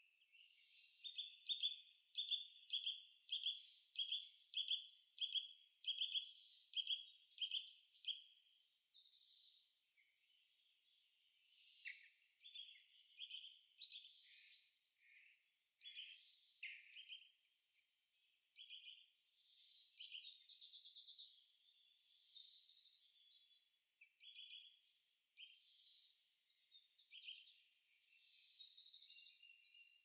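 Songbirds singing: one bird repeats a short high note about twice a second for several seconds, then more varied, higher chirping phrases follow on and off.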